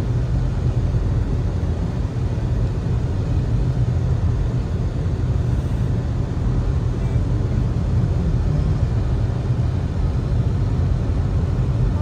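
Steady road and engine noise inside a car's cabin while driving on a highway, a low, even hum with no sudden sounds.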